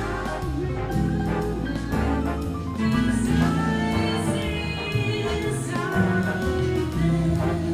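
Background music: a song with a singing voice over instruments and a steady beat.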